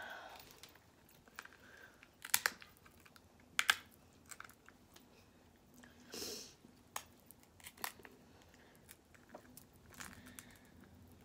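Cooked snow crab leg shells cracked and snapped apart by hand, with two sharp cracks a little over a second apart early on, among smaller shell clicks and chewing.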